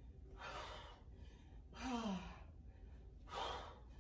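A woman breathing hard through straight leg crunches: three forceful exhales, about half a second, two seconds and three and a half seconds in, the middle one with a short falling sigh of voice.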